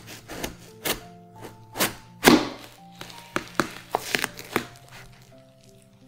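Knife cutting down through a whole watermelon, with irregular crisp cracks and crunches as the rind splits, the loudest a little over two seconds in and several more in quick succession after three seconds. Soft background music plays throughout.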